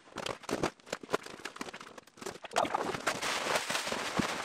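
Irregular crackling and rustling of plastic bubble wrap and a cardboard shipping box as a bubble-wrapped item is lifted out. The crackling grows denser about halfway through.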